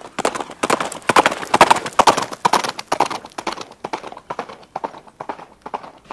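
Horse hooves clip-clopping in a quick, irregular run of sharp hoofbeats, loudest a second or two in and thinning out toward the end.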